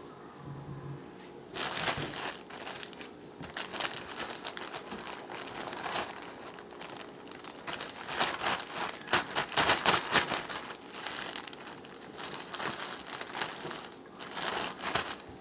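A bag or wrapper crinkling and rustling as it is handled, in repeated bursts, loudest about two-thirds of the way through.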